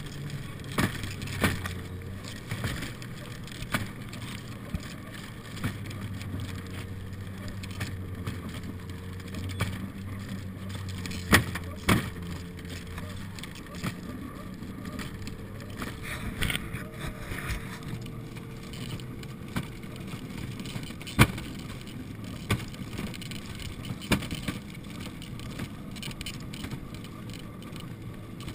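Snowmobile engine running steadily while the towed wooden sled it pulls clatters and bangs over bumps in the snow, with frequent sharp knocks standing out above the engine.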